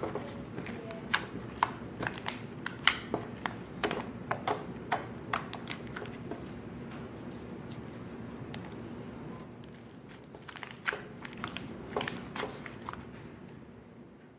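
Glossy slime being squished and pulled by hand, making irregular sticky pops and clicks that come thick at first and thin out toward the end.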